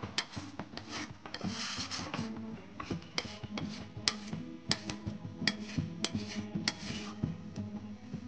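Flat metal spatula scraping and knocking against a metal karahi as a wet curry of meat and potato chunks is stirred: irregular sharp scrapes and clicks, several a second.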